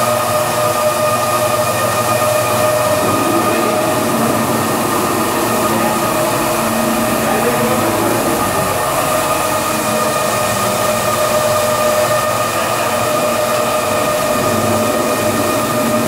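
Maxis automatic carpet washing machine running: its motor-driven scrubbing discs and conveyor make a steady whine over a constant hiss, unchanging throughout.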